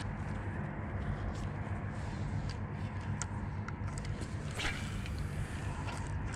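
A fishing rod being cast: a brief swish about four and a half seconds in, with a few faint clicks, over a steady low motor hum.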